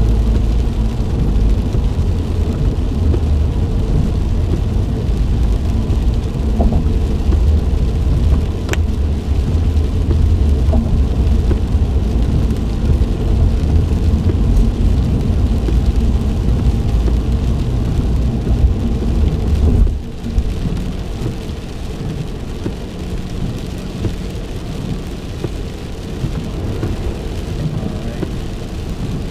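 Car driving in rain, heard from inside the cabin: a steady low rumble of the car with rain noise over it. The rumble eases off about two-thirds of the way through.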